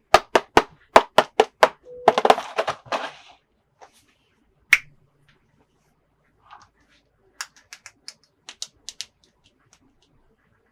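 Plastic toy pieces and packaging handled up close: a quick run of sharp clicks, about four a second, for the first two seconds, then a brief rustle, one loud click, and a few quieter clicks near the end.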